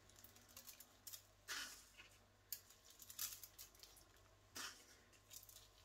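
Whole cumin seeds sprinkled over raw lamb shanks and vegetables in a roasting tray: faint, scattered light ticks and pattering, a few separate bursts.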